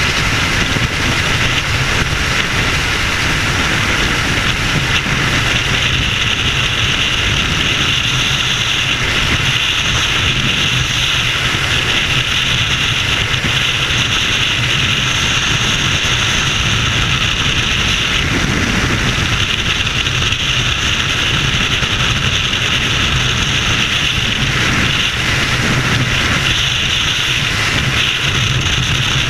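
Freefall wind rushing over a helmet camera's microphone: a steady, loud rush of wind noise.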